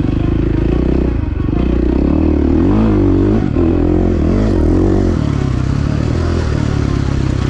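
Motocross dirt bike engine under riding load, its pitch swinging up and down with the throttle a couple of seconds in, then running steadier and lower.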